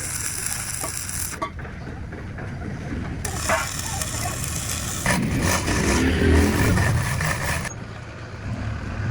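An engine running steadily under a few sharp metal knocks, with a hiss that cuts out and comes back abruptly.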